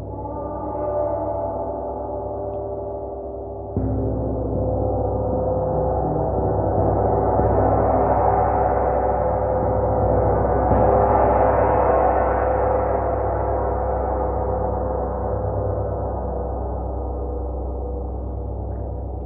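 Large gong ringing with a dense shimmer of overtones. It is struck again about four seconds in, swells gradually and then slowly fades.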